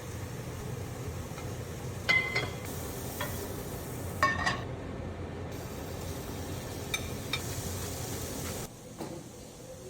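A few sharp clinks of utensils against cookware and dishes, about two seconds apart, over a steady kitchen hiss.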